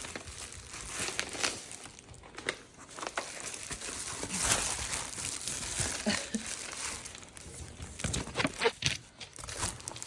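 Gift bags rustling and crinkling as they are handled and opened, with many small irregular crackles.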